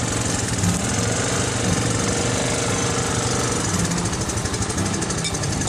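ATV engine running steadily, with a fast, even putter of firing pulses.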